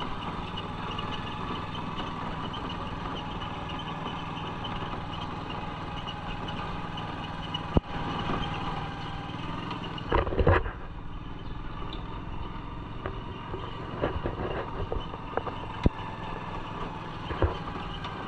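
Motorized tricycle (tuk-tuk) engine running steadily while riding over a cobblestone street, with a few sharp knocks and a brief louder rattle along the way.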